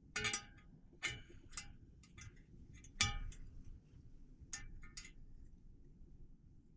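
Spoke wrench clinking against the steel spokes and nipples of a laced e-bike wheel during truing: about seven sharp metallic clinks at irregular intervals, some followed by a brief ring.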